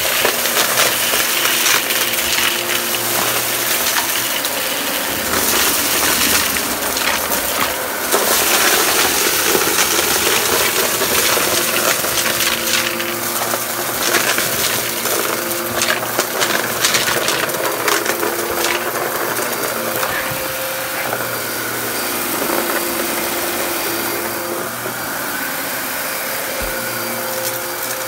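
Dyson upright vacuum cleaner running with a steady motor whine as it sucks up a pile of coarse debris from the carpet. The grit rattles and clatters up through the machine in a dense run of clicks, which thins out toward the end.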